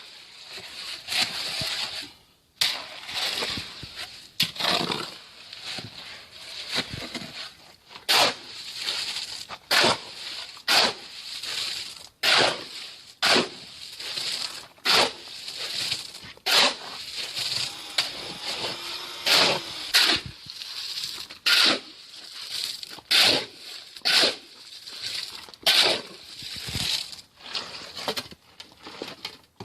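Hand masonry work with concrete and stone: a regular run of sharp tool strikes, about one every second or so, with scraping between them.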